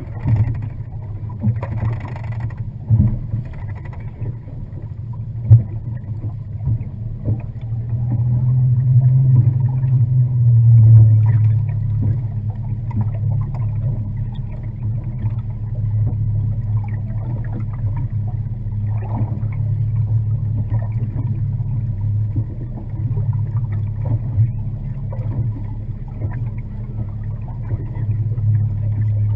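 Boat motor running steadily with a low hum that swells for a few seconds partway through, with a few knocks early on.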